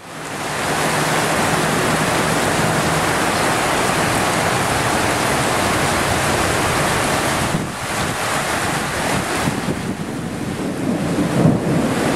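Heavy rain and strong wind from a thunderstorm make a steady rush, with wind buffeting the microphone. The sound fades in at the start and becomes gustier and more uneven after about eight seconds.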